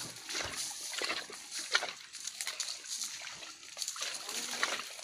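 Footsteps in rubber boots crunching and rustling through dry grass and fallen leaves, a quick irregular series of crackles.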